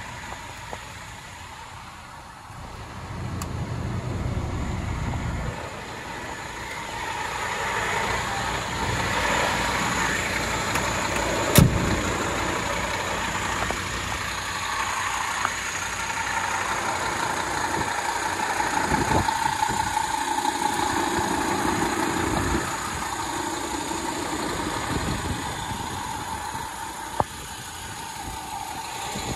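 Scania P230 refuse truck's five-cylinder diesel engine starting a couple of seconds in and then idling steadily. A single sharp knock sounds about halfway through.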